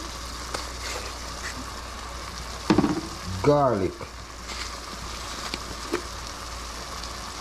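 Pot of coconut milk and chopped vegetables cooking on a gas stove: a steady sizzling hiss throughout, with a few light clicks as seasoning jars are handled.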